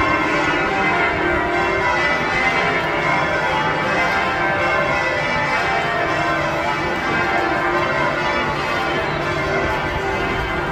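Church bells ringing a continuous peal, many bell tones overlapping at an even level.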